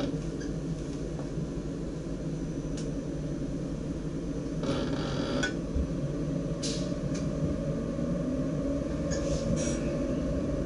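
Cab of a DDZ double-deck electric train moving off slowly: a steady low rumble that grows a little louder, with a few brief higher-pitched noises about halfway through and near the end.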